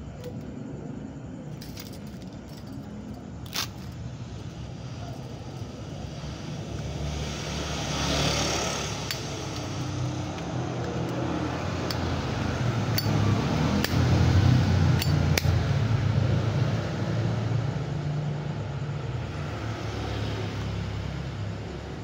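Sharp metallic clicks and taps as a leather pouch holding a Zippo lighter and a Swiss Army knife is handled. Underneath, a low rumble like passing traffic swells through the middle and fades toward the end.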